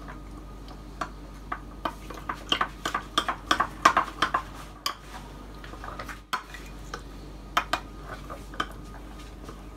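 Metal spoon stirring thick tahini sauce in a glass bowl, clicking and scraping against the glass in quick irregular strokes. The sauce has just thickened after water was stirred into the sesame paste. The strokes are busiest in the middle, with a pause and a few more taps near the end.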